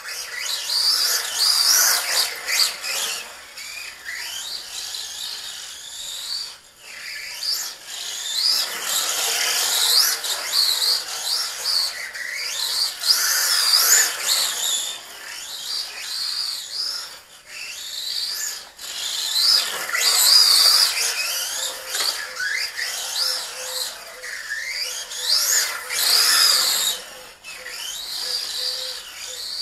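Racerstar 2845 5900kv brushless motor of an LC Racing short-course RC truck, running on a 2S LiPo: a high-pitched electric whine that rises and falls again and again as the throttle is worked. It is loudest when the truck passes close by, about halfway through.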